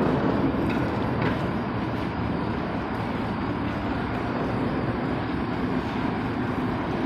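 Mobile concrete mixer truck running with a steady, even machine noise.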